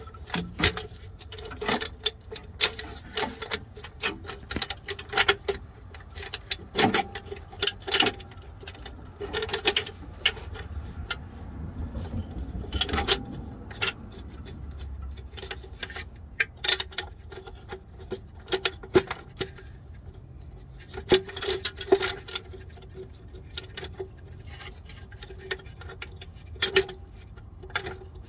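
Irregular small metallic clicks and taps of bolts and the crankcase oil separator housing being handled and threaded in by hand on a truck's diesel engine.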